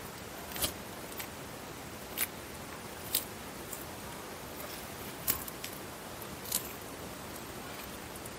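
An eastern Hermann's tortoise biting into leafy greens: sharp, crisp snaps of its beak through the leaves, about six at irregular intervals roughly a second apart, over a steady faint hiss.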